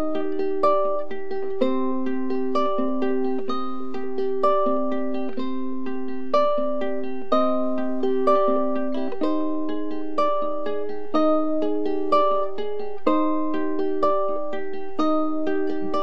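Ukulele playing a steady picked pattern of quick single plucked notes, with a louder accent about once a second.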